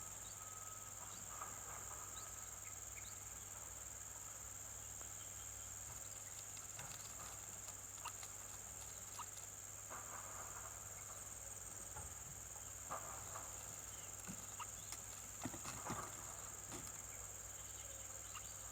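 A steady, high-pitched insect drone, like crickets, with scattered soft taps and rustles that are most frequent about three-quarters of the way through.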